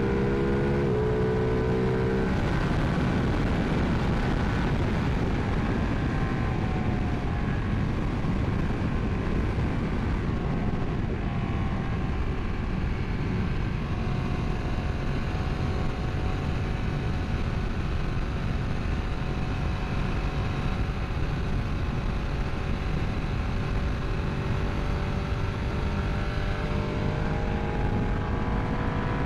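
Ducati 959 Panigale's V-twin running at speed in fourth gear, mostly buried under a steady rush of wind over the microphone. The engine note climbs for the first couple of seconds and rises again near the end.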